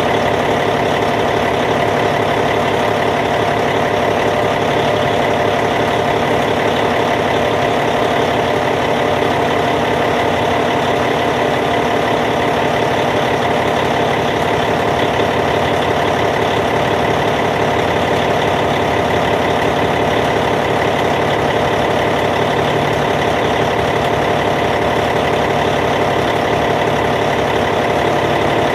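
Caterpillar C15 diesel engine of a D8T bulldozer idling, steady and even with no change in speed.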